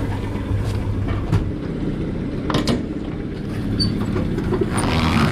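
Pontoon boat's outboard motor running steadily at low speed, a low even hum, with a few sharp metal clanks about a second in and midway through as the boat noses onto its trailer.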